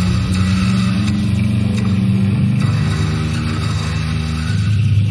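Loud experimental noise music played live: heavy low droning tones that shift in pitch a couple of times, under a harsh, hissing upper layer.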